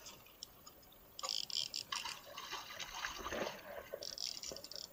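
A hooked king mackerel thrashing at the surface beside the boat, splashing irregularly from about a second in.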